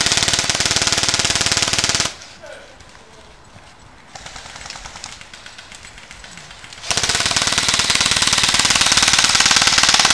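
Airsoft gun firing on full auto in two long bursts of rapid clicking shots, one for about two seconds at the start, the other from about seven seconds in.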